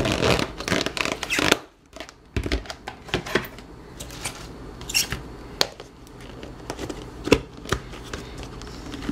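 Plastic lids being pressed and snapped onto plastic food-storage containers, with the containers handled and set down on a countertop: a string of irregular clicks, taps and rustles, busiest in the first second and a half. A washing machine hums steadily underneath.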